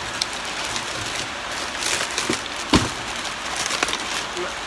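Heavy rain pouring down in a steady hiss. Kitchen utensils handled in a plastic bag add a few sharp clicks and one louder knock just under three seconds in.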